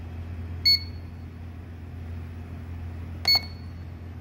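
Two short electronic beeps, about two and a half seconds apart, from a C240 DUO LiPo balance charger as it finishes its battery check and starts balance charging a 3S pack, over a steady low hum.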